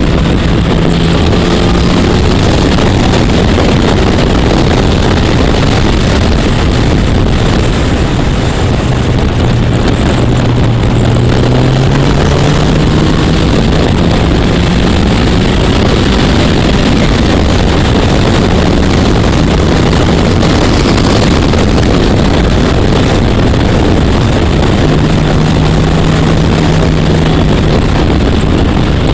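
Motorcycle engine running under way, its pitch dropping and rising with the throttle through the bends, under heavy wind rush on the microphone.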